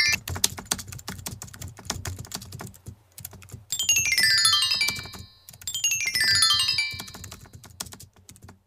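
Animated-intro sound effects: a rapid patter of sharp clicks, and twice a sparkling run of chime-like tones falling in pitch, each lasting about a second and a half.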